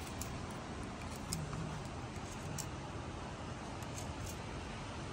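A steady rushing outdoor background noise, with a few faint light ticks from hands working a wooden stick.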